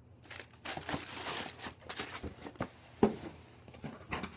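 Rustling and crinkling of sneaker packaging being handled, paper and cardboard, with a few sharp knocks, the loudest about three seconds in.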